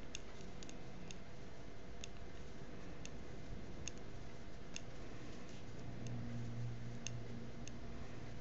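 Metal knitting needles clicking lightly against each other as stitches are worked quickly, single irregular ticks about once a second over a steady room hiss.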